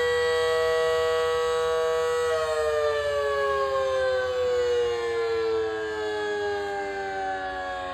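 Federal Sign and Signal Model 5BT electromechanical outdoor warning siren sounding a steady two-note chord. About two seconds in it starts winding down, its pitch falling smoothly and steadily.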